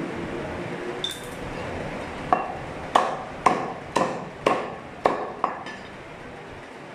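Heavy butcher's cleaver chopping a rack of goat ribs into pieces on a wooden chopping block: about seven sharp chops, roughly two a second, each with a short metallic ring.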